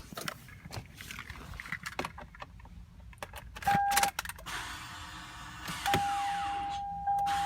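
Key clicks, a short beep, then a whirring hiss joined by a steady electronic tone: a 2004 Toyota Sienna's starter spinning without turning the engine over. The owner takes this for a failing starter.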